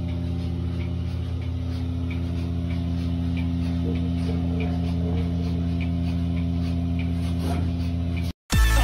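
A steady mechanical hum with a faint, regular ticking over it; it cuts off suddenly near the end.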